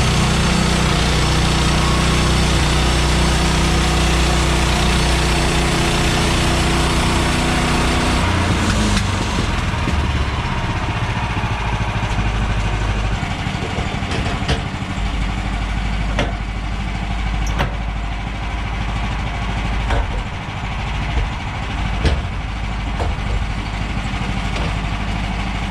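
Woodland Mills bandsaw sawmill's gas engine running steadily. About eight seconds in it drops to a lower, quieter running sound, with a few sharp knocks in the second half.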